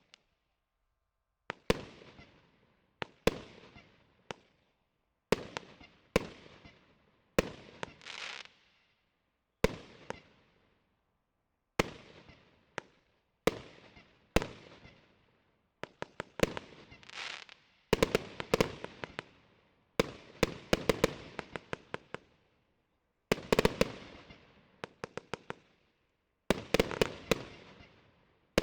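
Consumer fireworks cake (TXB270 Anarchy battery) firing shot after shot, each a sharp bang followed by a fading crackle. The shots come singly a second or two apart at first, then in quick volleys of several bangs from about halfway on.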